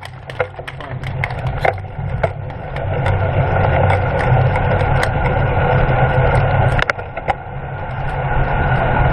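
Wind and road noise on a bicycle-mounted camera as a road bike race pulls away from the start, rising over the first few seconds and then holding steady. Scattered sharp clicks are heard in the first couple of seconds.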